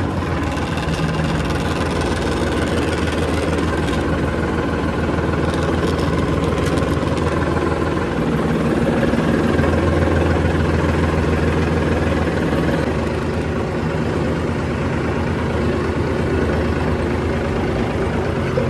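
Large diesel engine running steadily just after starting, with a deep even hum that grows a little louder around the middle.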